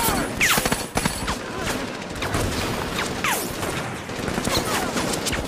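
Dense gunfire in a battle, many shots cracking in quick, irregular succession, with short falling whistles among them.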